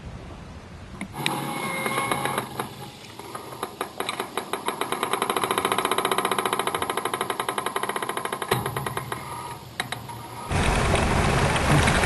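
A fast, rhythmic mechanical clicking that speeds up to about eight clicks a second and holds there. Near the end it cuts off suddenly and the rush of wind and breaking water alongside a sailing boat takes over.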